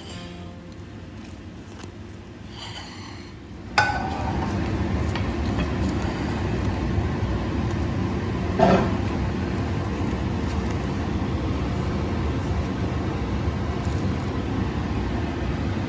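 A steady low rumbling noise that sets in abruptly about four seconds in, with a single light tap partway through.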